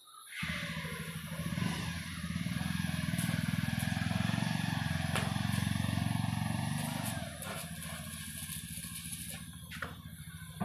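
An engine running with a fast, even firing beat. It starts suddenly about half a second in and eases down to a lower level about seven seconds in.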